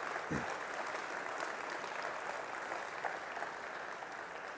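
Congregation applauding, a steady patter of many hands clapping.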